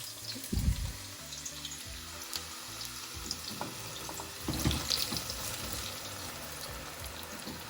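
Thinly sliced onions sizzling as they start frying in hot oil in a pan, a steady hiss with a couple of knocks, one about half a second in and one near the middle.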